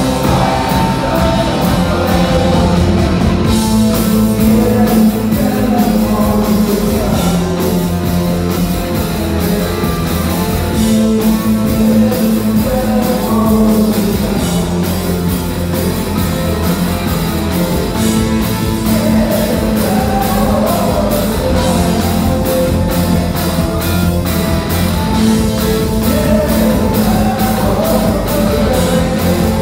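Rock band playing live, electric guitar, keyboard and drum kit driving along at a steady beat, with singing.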